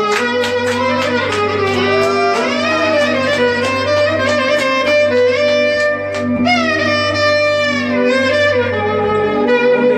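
Clarinet improvising a hicaz taksim: free melodic phrases with sliding, bending notes and one long held note around the middle, over a steady low drone.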